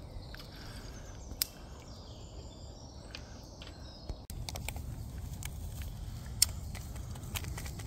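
Woodland ambience with faint birdsong over a low steady rumble. About four seconds in it changes to close crinkling and sharp ticks as instant coffee granules are shaken from a paper sachet into a collapsible plastic cup, with one louder tick near the end.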